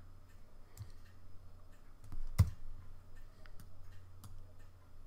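A few scattered clicks of a computer mouse. The loudest comes about two and a half seconds in and carries a dull knock. A low steady hum runs underneath.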